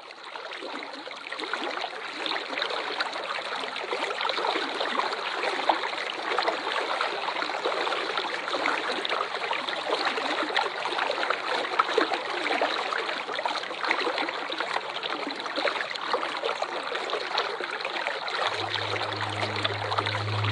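Waterfall: a steady rush of splashing, falling water, fading in over the first second or so. A low steady hum joins it near the end.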